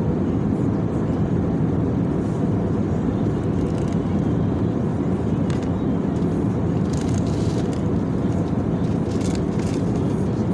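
Steady low rumble of an airliner cabin in flight: engine and air noise, constant throughout, with a few faint light clicks near the end.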